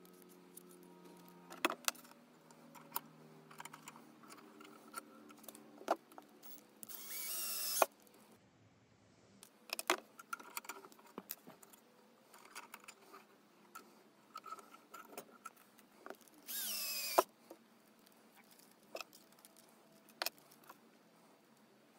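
Cordless drill spun in two short bursts of about a second each, its motor whine rising and falling. Between them come scattered clicks and rattles of the chuck and small wire pieces being handled.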